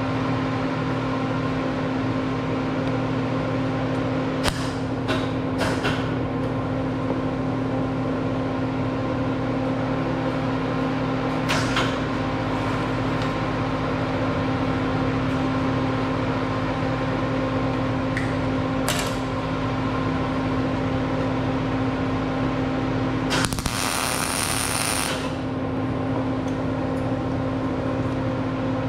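Welder humming steadily, broken by short bursts of arc welding and one longer burst of about two seconds near the end: tack welds going onto a steel frame.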